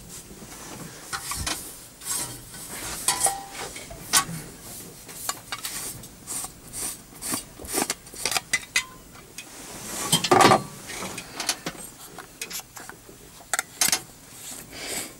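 Stainless steel food thermos being handled and opened: short metallic clicks, taps and scrapes of its lid and inner container, with one louder rustling scrape about ten seconds in.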